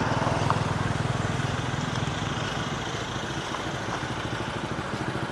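A vehicle engine running steadily with a fast, even pulse, a little louder in the first second, over general street noise.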